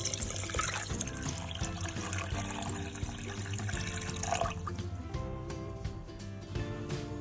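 Water running, as a steady splashing hiss that stops about four and a half seconds in, under background music.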